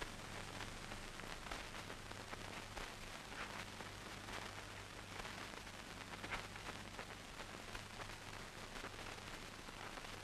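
Steady hiss and faint crackle of an old film soundtrack, with a low hum underneath and a few faint ticks.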